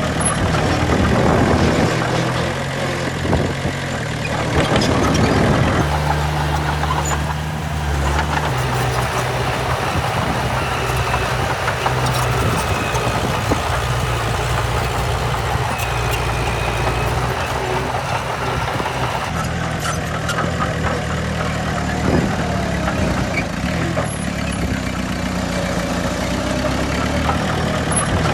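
Heavy diesel engines of earthmoving machinery running steadily, with the engine note shifting about six seconds in and again at about nineteen seconds.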